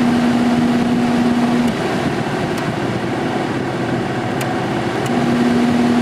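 Sharp room air conditioner's Samsung fan motor running just after start-up: a steady rush of air from the blower with a motor hum. The hum drops out about two seconds in and returns near the end.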